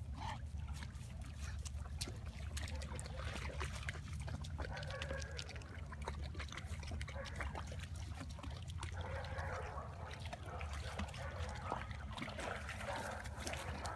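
Sounds from a dog, with many small clicks, over a steady low rumble.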